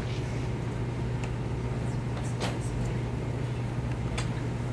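Steady low room hum, with a few soft clicks and rustles as a man gets up from a table and takes hold of a handheld microphone.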